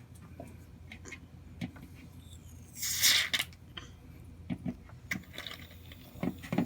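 Light knocks and clicks of bottles and containers being handled at a table, with one short hissing burst about three seconds in.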